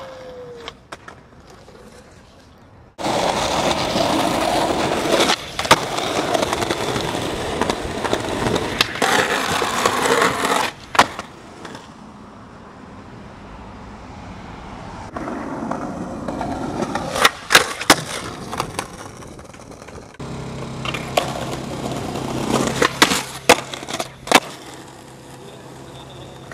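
Skateboard wheels rolling on concrete and pavement, with sharp clacks from pops and landings, and trucks grinding along a ledge.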